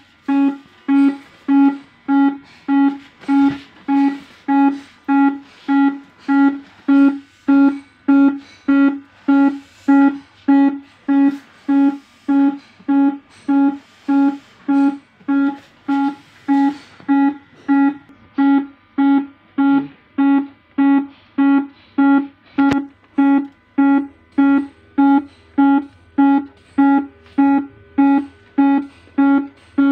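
CPR training manikin's electronic control unit beeping: one steady electronic tone repeating evenly about twice a second, the pace of a chest-compression metronome.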